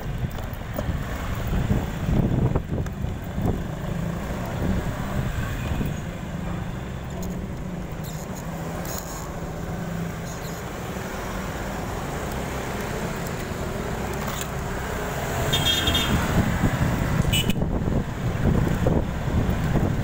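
Road traffic noise and wind rushing over the microphone, with a low engine rumble. It grows louder about three quarters of the way in, where a brief high-pitched squeak is heard.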